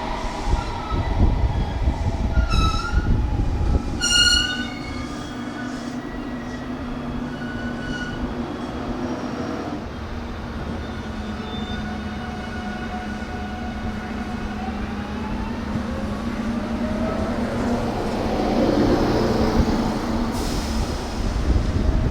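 Electric train running close by, sounding two short horn toots about a second and a half apart near the start. Its traction motors whine under a steady rumble, the pitch of the whine sliding down and then climbing again over the later part.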